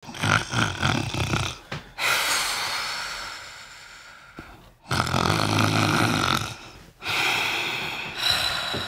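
A person in bed snoring loudly: about four long snores in a row, with a short break between each.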